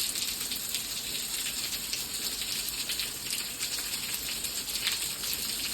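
Steady rain falling, a dense hiss of many small drops pattering on a surface.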